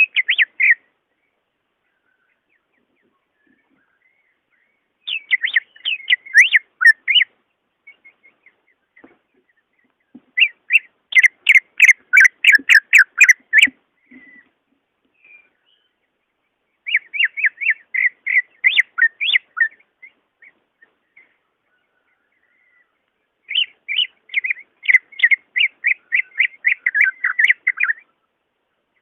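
Green leafbird (cucak ijo) singing in repeated bursts of rapid, chattering whistled notes, each burst lasting a few seconds, with short pauses between them.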